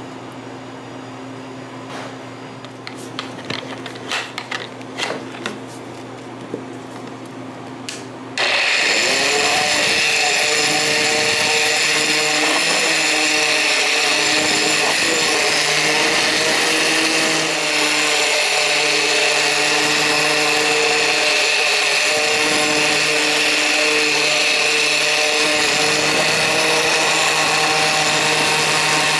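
A few light knocks and clicks of handling, then, about eight seconds in, an immersion blender switches on, spins up and runs steadily and loudly as it purées chunks of mango with liquid in a clear plastic container.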